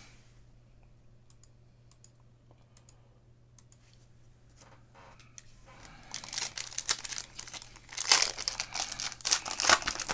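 Foil wrapper of a football trading-card pack being torn open and crinkled by hand, loud crackling from about six seconds in, after a few faint clicks.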